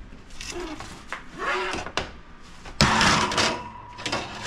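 Aluminium sheet pan sliding off the stovetop into the oven, with handling rattles and a loud metal scrape about three seconds in as the pan goes onto the oven rack.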